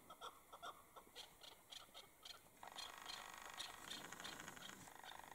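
Faint chukar partridge calling in quick, short chirping notes, several a second, over a low hiss.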